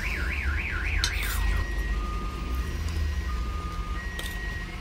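Vehicle alarm siren sounding: a fast warbling tone, about three wobbles a second, that stops about a second in and switches to a slow alternating high-low two-tone beep. A steady low rumble runs underneath.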